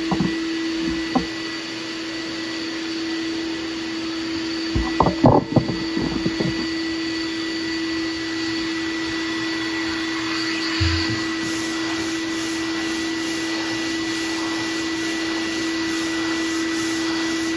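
Shop dust extractor running steadily with a constant hum, drawing air through the hose of a vacuum hand sanding block. There is a cluster of knocks about five seconds in, and in the second half the block rasps over primer on a steel truck door.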